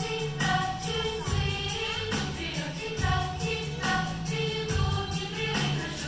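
Music: a choir singing over a steady beat.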